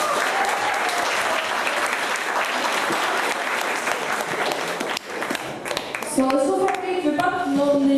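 Audience applauding for about five seconds, the clapping dying away. Voices start near the end.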